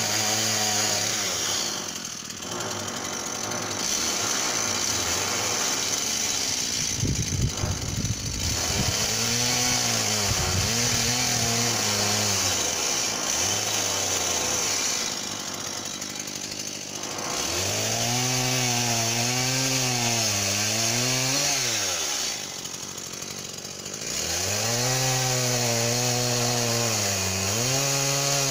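Stihl MS 170 two-stroke chainsaw running through several spells of cutting. The engine note sags and wavers under load, then climbs sharply before easing off, with short lulls between spells.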